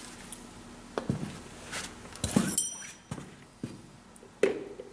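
Scattered clicks and clinks of small metal parts being handled: a diesel fuel injector, its copper sealing washers and a metal can of anti-seize. One clink, about two and a half seconds in, rings briefly.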